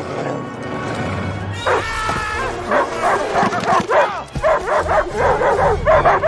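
A cartoon guard dog barking in quick, repeated yaps, several a second, starting a little under two seconds in, over film score music.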